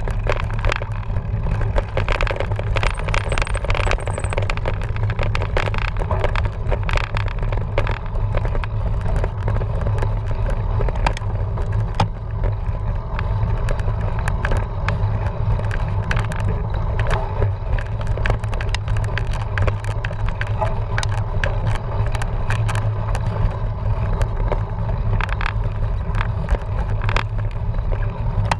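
Cyclocross bike being ridden over rough ground: a steady heavy rumble of wind and tyres with constant irregular clicking and rattling from the bike.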